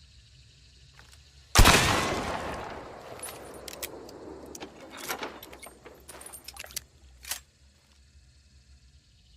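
A single Maynard rifle shot, sharp and loud, with a long echoing tail. Several sharp metallic clicks and clatters follow over the next few seconds, the rifle's action being worked.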